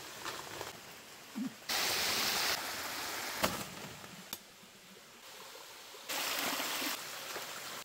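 Running water of a forest stream, a steady rushing hiss that jumps abruptly louder and softer several times, with a sharp click about three and a half seconds in.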